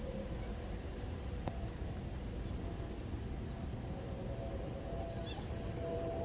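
Steady high-pitched insect chirring over a low outdoor rumble, with a single sharp click about a second and a half in.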